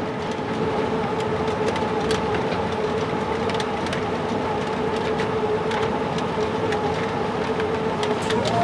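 Escalator running: a steady mechanical hum with a constant tone and scattered light clicks.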